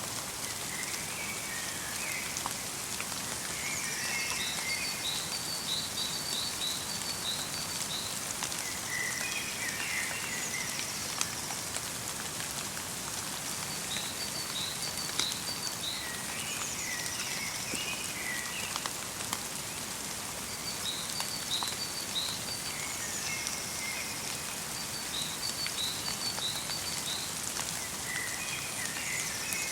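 Light rain pattering steadily in a winter forest, with small birds chirping short, repeated phrases every few seconds.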